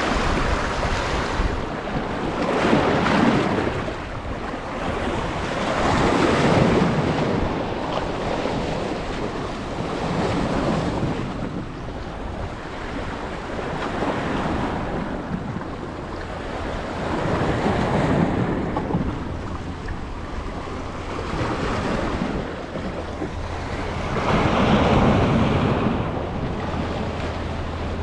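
Waves washing with wind, a steady rush that swells and ebbs every few seconds.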